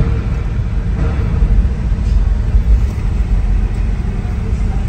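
Car engine running at low revs as the car creeps forward, heard from inside the cabin as a steady low rumble.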